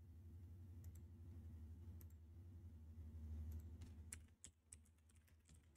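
Faint clicks of a computer keyboard and mouse over a low steady hum, a few scattered at first and most of them in the last second and a half.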